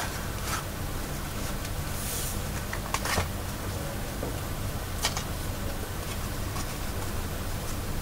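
Paper handling: a stitched paper booklet being pressed open flat and its binding yarn handled at the spine, giving a few short rustles and taps over a steady low hum.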